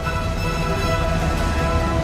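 Background music: a soundtrack-style piece with held notes and a low bass line.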